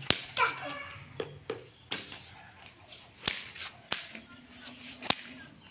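A jaranan whip (pecut) swung by a child, cracking sharply about five times at uneven intervals.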